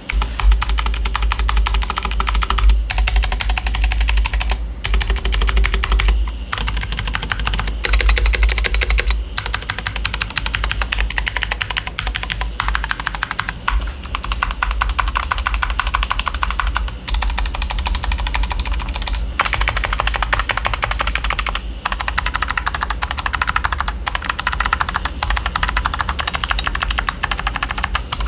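Fast typing on a mechanical keyboard with clicky switches: a dense, rapid stream of sharp clicks, broken by short pauses every few seconds.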